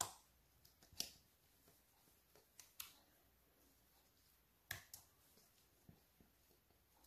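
A few faint, scattered clicks of a spatula tapping and scraping against the rim of a mixing bowl as a thick, creamy mixture is scraped out; otherwise near silence.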